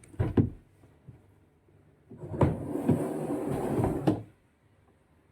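A few sharp knocks, then about two seconds of clattering and scraping with many knocks, like a cupboard door or hard panel being opened and handled.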